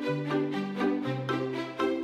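Light instrumental background music, with short repeated notes over a bass line that changes about every half second.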